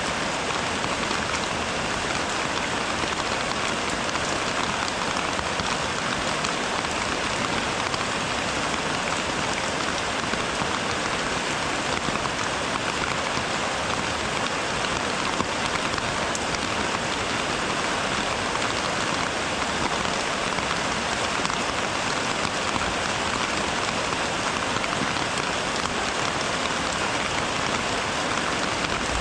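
Steady rain falling, an even, unbroken patter with no let-up.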